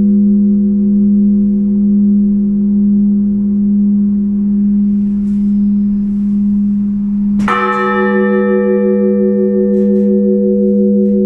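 Church bells rung for the liturgy: a deep bell hums on steadily, and about seven and a half seconds in a bell is struck again with a bright clang whose overtones die away over a few seconds.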